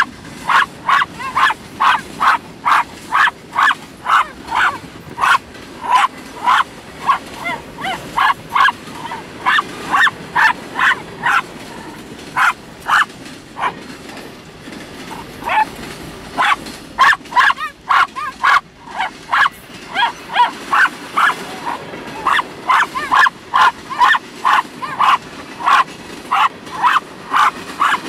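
Small dog barking at a passing freight train: a rapid, steady string of sharp yapping barks, about two to three a second, with a short break about halfway through.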